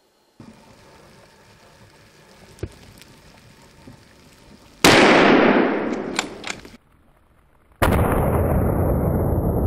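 Two hunting rifle shots about three seconds apart, each starting sharply and followed by an echo rolling through the forest; the second one's rumble is still going at the end.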